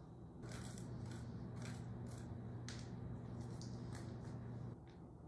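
Spoon scraping the seeds and stringy pulp out of a halved spaghetti squash: a string of short scrapes, over a low steady hum.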